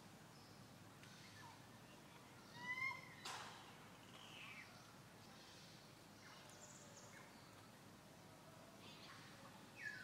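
Quiet forest ambience: a faint steady hiss with a short upward-sweeping chirping call about two and a half seconds in, a sharp click just after it, and a few fainter calls later on.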